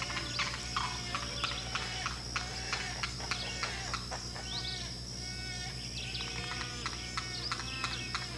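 Many birds calling: a dense run of short chirps and sharp call notes, with a few longer falling calls about halfway through.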